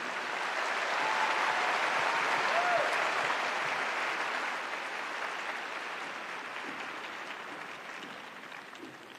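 Arena audience applauding at the end of a figure skating program, strongest in the first few seconds and then fading steadily away.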